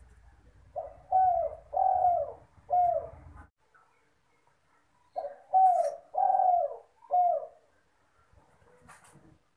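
Spotted dove (derkuku/tekukur) cooing. It gives two phrases of four coos each, the first starting about a second in and the second about five seconds in, and the third coo in each phrase is the longest.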